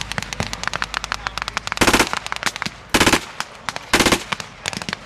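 Machine gun firing blanks in three short rapid bursts about a second apart, over a steady crackle of scattered rifle and small-arms blank shots from a battle reenactment.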